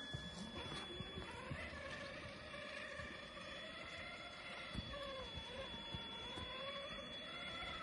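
Electric motor and gearbox whine of a Traxxas TRX-4 RC crawler driving over snow, rising and falling in pitch with the throttle, with scattered soft knocks underneath.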